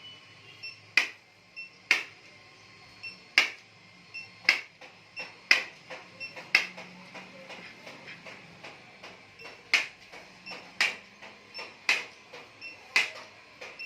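Chiropractic impulse adjusting gun firing: a series of sharp spring-loaded clicks, about one a second, each with a short metallic ring, with a pause of a couple of seconds midway.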